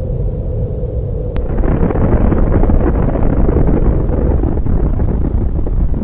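Sustained low rumble of a nuclear blast, swelling about a second and a half in and staying loud with a crackling texture.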